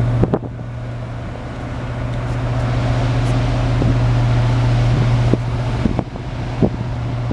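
Freedom-class littoral combat ship's machinery giving a steady low hum as it passes close by, with wind noise over it. The hum dips briefly about five and a half seconds in, and a few light knocks come near the end.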